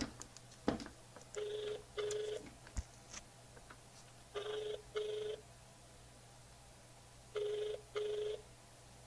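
Telephone ringback tone of a call ringing out: three pairs of short rings, one pair about every three seconds. A few sharp clicks fall in the first three seconds.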